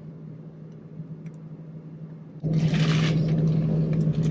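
Ceiling fan running: a steady motor hum with a rush of air, which jumps suddenly much louder about two and a half seconds in, with a short burst of noise at the jump, then carries on steadily.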